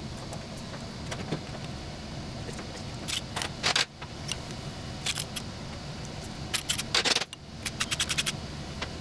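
Cordless impact driver run in short bursts on a fastener of a Land Rover gearbox's transmission brake backplate, with sharp metallic clattering, ending in a quick run of rattling hits.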